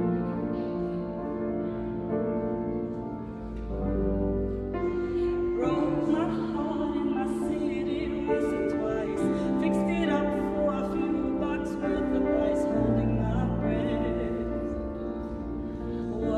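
Grand piano accompaniment, with a woman's solo voice coming in about five seconds in and singing a slow melodic line with vibrato.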